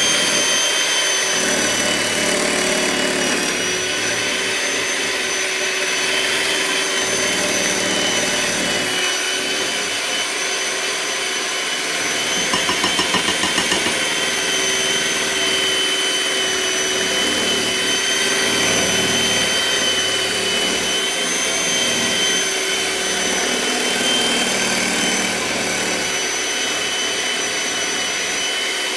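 Electric mixer running steadily with a high motor whine, creaming a brown-sugar mixture; a brief rapid rattle comes about halfway through.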